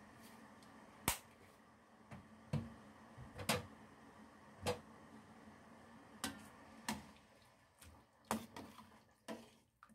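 Sharp clicks and knocks of utensils against a stainless-steel cooking pot, scattered roughly a second apart over a faint steady hiss. The closest ones come near the end, as a ladle stirs the pork and broth in the pot.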